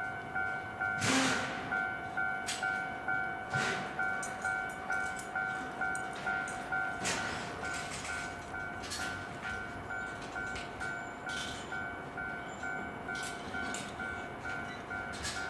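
Japanese railway level-crossing alarm ringing its repeated 'kan-kan' warning at an even pace of about one and a half strikes a second, sounding while a train is due. A few louder knocks now and then, with a tram passing.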